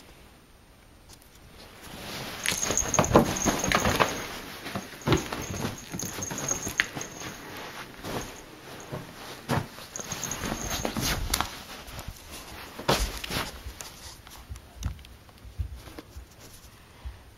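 A cat scuffling about as it plays in bedding and a play tunnel. Rustling and scratching comes with scattered knocks, loudest a few seconds in, and it dies away in the last few seconds.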